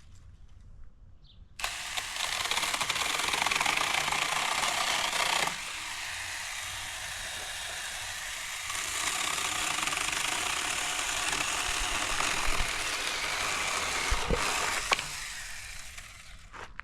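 Saker cordless electric mini chainsaw starting up suddenly and running while cutting a branch. Its sound drops back about four seconds later, rises again partway through, and dies away near the end.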